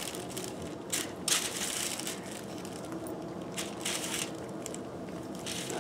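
Handling noises: a few brief rustles and scrapes, one near 4 s lasting about half a second, as a small piece of fabric and snap fastener parts are fitted onto a hand snap-setting press.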